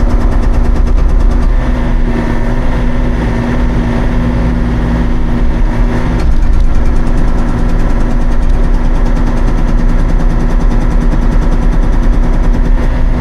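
Hauyee 35c mini excavator's diesel engine running steadily, with a fast, even rapping running through the sound.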